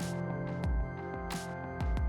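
Background music: held chords over a slow beat of deep drum hits with crisp cymbal-like hits between them.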